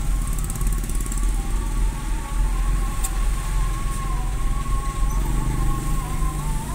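Vehicle engine running with a steady low rumble, heard from inside the cab as it creeps through traffic, with a steady high tone that slowly wavers in pitch above it.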